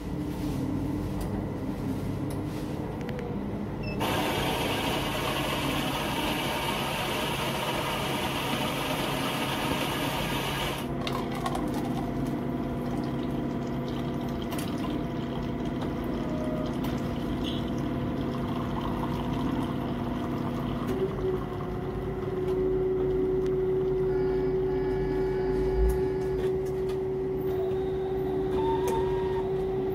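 A motor-driven machine running with a steady low hum. About four seconds in a harsh hiss joins it for some seven seconds, then a steady whine takes over and steps up in pitch about two-thirds of the way through.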